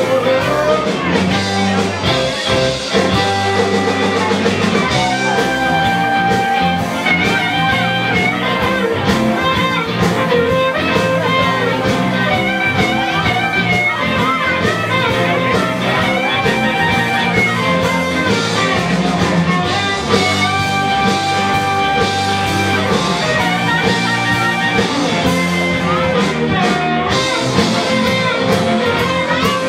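Live blues-rock band playing loud, an electric guitar leading with long held, bent notes over the band.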